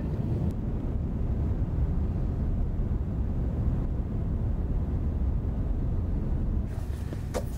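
Steady low rumble of rushing air from the wind tunnel flowing over the test car. About seven seconds in, a thin hiss joins it and there is a single click.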